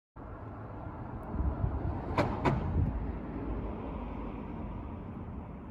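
Steady low outdoor rumble, like distant traffic, with two sharp clicks in quick succession a little over two seconds in.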